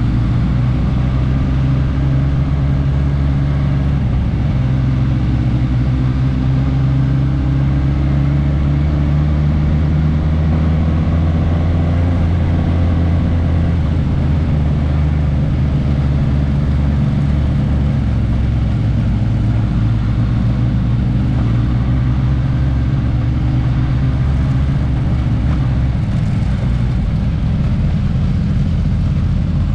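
Suzuki GSX-S1000S Katana's inline-four engine running under way, its pitch drifting gently up and down with the throttle.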